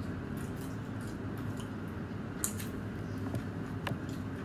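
Close-up mouth sounds of a person chewing and smacking their lips while eating with their fingers, with a few sharp clicks, the sharpest about halfway through. A steady low hum runs underneath.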